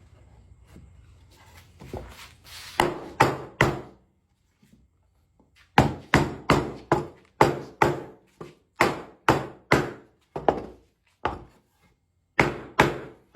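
Hammer blows on wood, driving a glued hardwood spline and two grooved 2x4 pieces together. A few sharp strikes, a short pause, then steady runs of blows at two to three a second.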